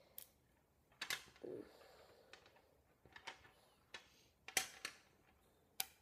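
Small magnetic balls clicking together as they are shaped by hand: faint, irregular sharp clicks, about one or two a second.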